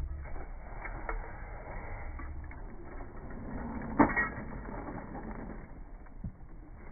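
Metal-on-metal work under the car: irregular creaking and clicking of hand tools on the exhaust, with one sharp clank about four seconds in.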